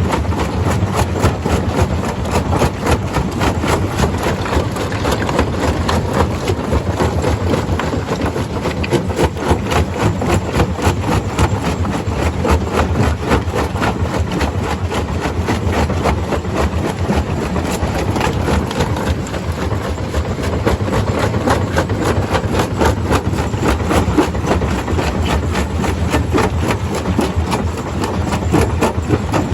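Stone crusher running steadily: a heavy engine drone under a dense, continuous rattle.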